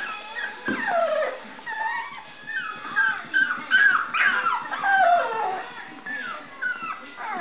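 Kerry Blue Terrier puppies whining and yipping at play: a quick run of short, high cries that slide downward in pitch, most crowded in the middle.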